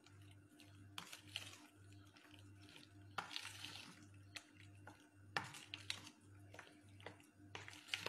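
Faint wet squelching and scraping of a spoon stirring chicken pieces through a thick yogurt marinade in a plastic bowl, in short irregular strokes, the loudest about three and five and a half seconds in.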